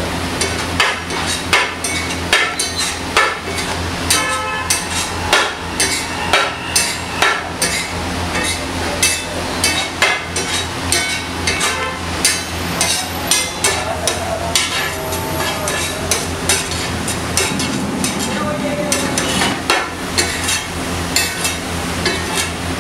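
Metal spatula clanking and scraping on a large flat steel griddle, irregular sharp strikes about twice a second, some with a brief metallic ring, over a steady frying sizzle and a low hum.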